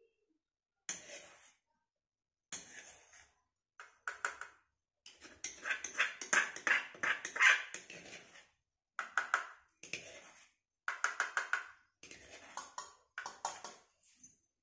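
A steel spoon scraping mashed potato chutney out of a stone mortar and knocking it off into a steel bowl: a run of short scrapes and clinks, quickest and loudest about halfway through.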